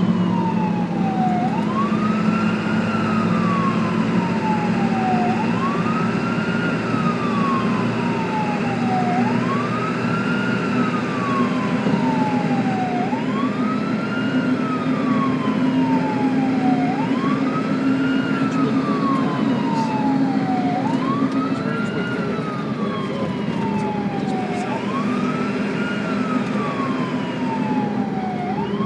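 Ambulance siren on a slow wail, each cycle rising quickly and then falling slowly, about one cycle every four seconds, over a steady low drone.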